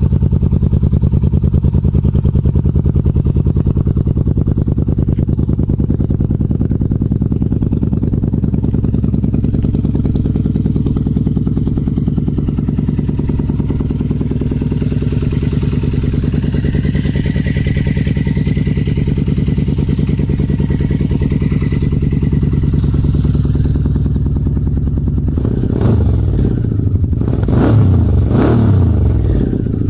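Yamaha V-Max 1200 V4 motorcycle engine idling with a steady purr through an aftermarket carbon-fibre slip-on muffler. Near the end the throttle is blipped a few times, the revs rising and falling quickly.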